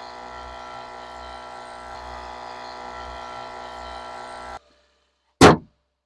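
Portable electric tyre inflator running with a steady buzz, cutting off abruptly near the end of its run. A brief loud falling sound follows about a second later.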